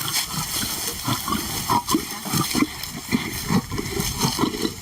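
Lions growling and snarling over meat, a rapid run of short, rough growls.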